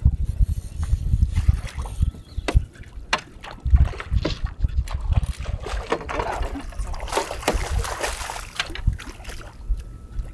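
Water slapping and splashing at the side of a small boat in choppy sea, with a longer spell of splashing about six to eight and a half seconds in. An uneven low rumble of wind on the microphone and a few sharp clicks run through the first half.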